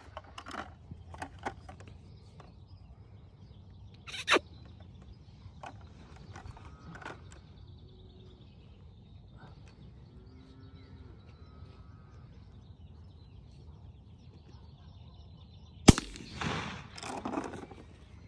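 A single rifle shot, sudden and loud, about three-quarters of the way through: a homekill shot at a cattle beast, which drops. Before it, faint bird calls and a few small clicks.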